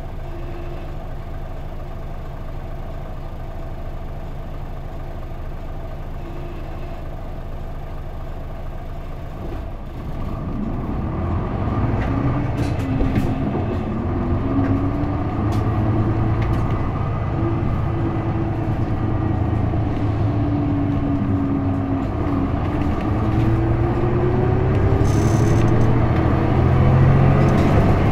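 Diesel engine of a 2005 Isuzu Erga city bus with a manual gearbox, heard from inside the bus: a steady idle, then about ten seconds in it pulls away and the engine note rises. The pitch drops back at a gear change and climbs again near the end as the bus accelerates.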